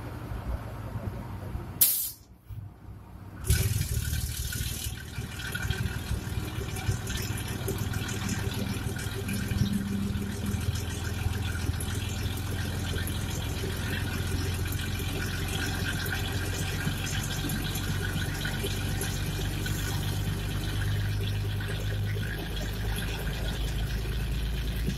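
Historic Breda ALn 556 diesel railcar under way at low speed: the diesel engine drones steadily under load, mixed with wheel and rail running noise and wind rushing past the open window. About two seconds in there is a sharp click and the sound drops out suddenly for over a second before returning.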